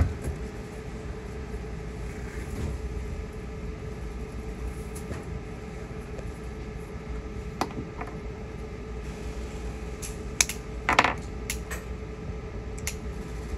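Stainless-steel chainmail mesh clinking as it is handled, with scattered sharp metallic clicks and a short jingle of links about eleven seconds in.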